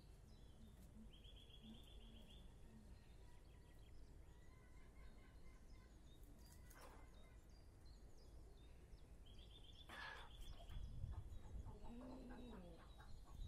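Quiet farmyard ambience: faint bird chirps and two short, rapid high trills, then a soft low clucking call from chickens near the end.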